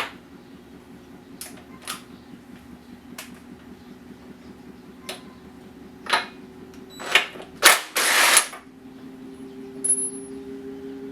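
Spark-plug socket and wrench working the plug out of a small Briggs & Stratton mower engine: sharp metal clicks about once a second, then louder rattling and scraping, the longest near the end about half a second long. A low steady hum runs underneath.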